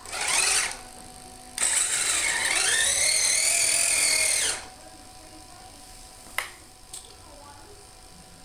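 Brushless electric drive of a Kyosho Blizzard SR RC tracked snow tractor whining under throttle: a short burst first, then a run of about three seconds whose pitch rises and falls. Two sharp clicks follow near the end.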